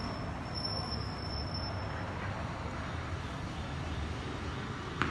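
Steady low rumble of road traffic, with a faint high whine in the first two seconds and a single short click about five seconds in.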